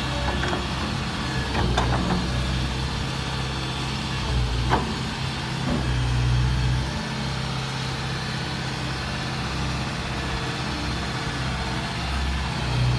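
Diesel engine of an O&K MH Plus wheeled excavator running, its level swelling and easing as it works, with a couple of short knocks.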